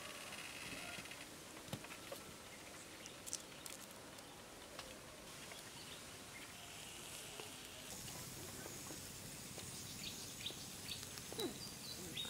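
Faint outdoor background with a few short bird chirps and scattered small clicks.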